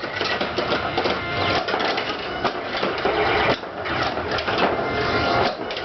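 Attack From Mars pinball machine in play: a fast, irregular clatter of solenoids, flippers and the ball striking targets, with the game's electronic sound effects underneath.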